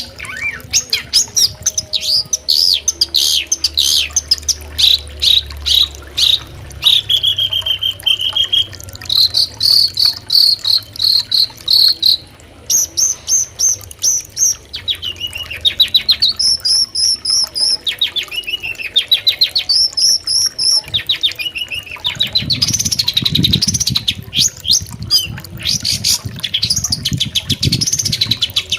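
Long-tailed shrike (cendet) singing a long, varied song of fast trills, repeated chirps and short whistled runs, one phrase after another. A low rumble runs underneath in the last few seconds.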